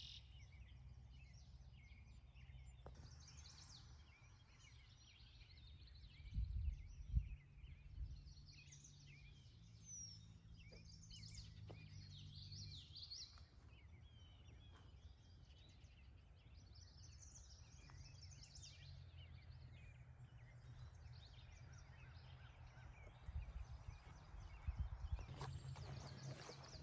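Faint outdoor ambience with scattered birdsong: short chirps and trills from several birds throughout. A low steady rumble runs underneath, with a few brief low bumps about six to seven seconds in and again near the end.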